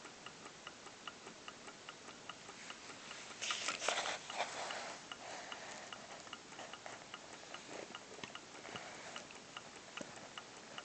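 A clock ticking steadily, about two ticks a second. About three and a half seconds in there is a brief rustle of newspaper as the cat shifts on it.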